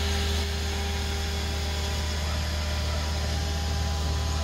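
Engine of a truck-mounted crane running steadily, a low even drone during crane work to lift a tree.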